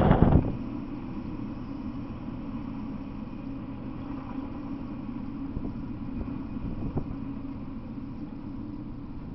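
A steady low engine rumble, with a short loud burst right at the start.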